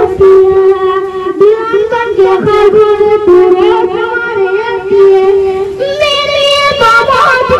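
A boy singing a ghazal solo into a microphone. He holds long notes with ornamented turns, and the line climbs higher near the end.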